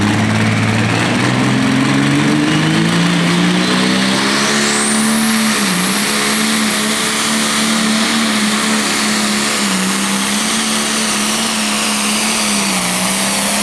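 John Deere Pro Stock pulling tractor's turbocharged diesel engine under full load on the track, its note climbing for the first five seconds and then holding at high revs with brief dips. A high turbo whine rises over the same stretch and stays on top.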